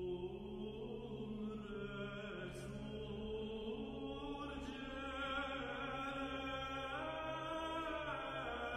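Music: slow chanted singing in long held notes that shift pitch gradually, over a steady low drone.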